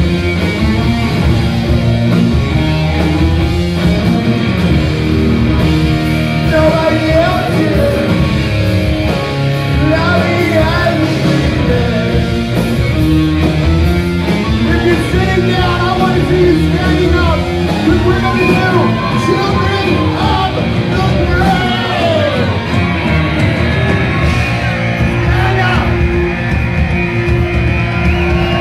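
Heavy rock song with singing over electric guitar, loud and continuous.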